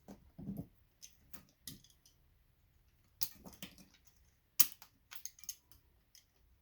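Christmas light bulb sockets being broken apart for their brass: a string of sharp plastic clicks and snaps, with a duller knock about half a second in and the loudest crack about two-thirds of the way through.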